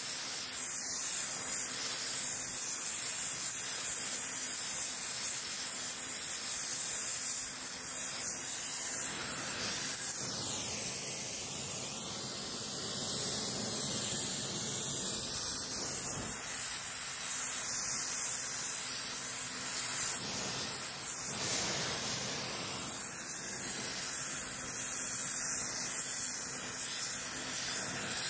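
Gas brazing torch flame hissing steadily as it heats an iron spindle joint for brazing.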